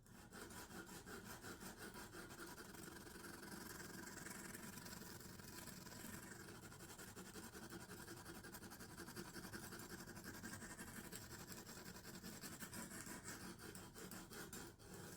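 Coarse diamond hone of a Lansky guided sharpening system drawn rapidly back and forth along a clamped knife's edge: a faint, steady scraping of many short, even strokes, raising a burr on the edge.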